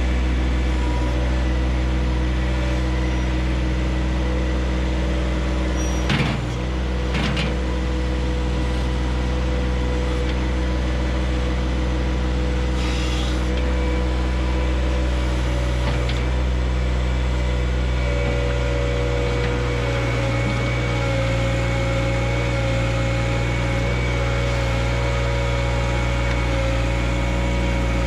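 John Deere 1025R compact tractor's three-cylinder diesel engine running steadily at working speed, with a higher whine that shifts slightly in pitch over it. There are two sharp knocks about six and seven seconds in.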